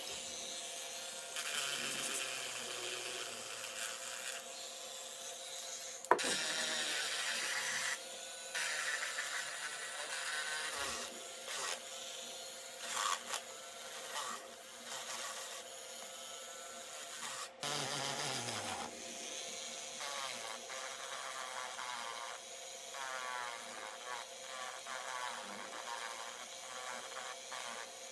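Small pen-style electric rotary tool running with a steady whine while its bit grinds holes through air-dry clay. The grinding comes and goes in short irregular spells as the bit is pressed in and lifted.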